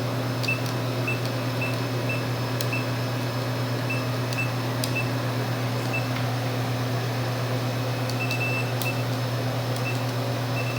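Vending machine humming steadily, with short high beeps now and then and a few faint clicks.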